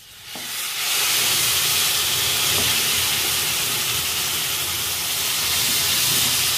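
Water poured into a hot pan of broken wheat roasted in ghee, hissing and sizzling as it hits the hot fat and flashes to steam. The hiss builds within the first second, then holds steady and loud.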